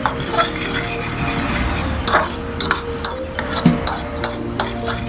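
A fork stirring and scraping through a dry flour-and-cornstarch breading in a plastic mixing bowl: quick, irregular scrapes and light taps against the bowl.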